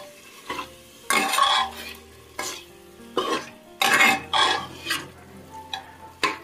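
Steel spoon scraping and stirring mutton pieces around a metal pot in a run of about ten irregular strokes, over a soft sizzle of the meat frying in oil.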